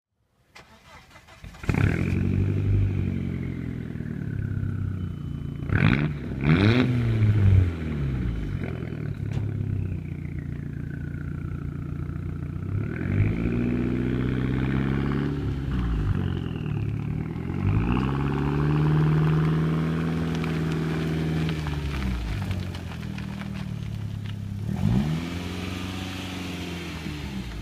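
Audi A4 B5 1.8-litre turbocharged four-cylinder with a straight-pipe exhaust, revving up through the gears and easing off several times, with a turbo whistle rising and falling above the engine note. A few sharp cracks stand out about six to seven seconds in.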